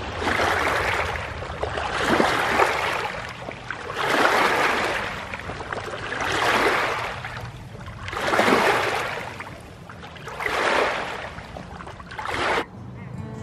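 Small waves lapping on a pebbly lake shore, one wash of water about every two seconds. The sound cuts off abruptly near the end.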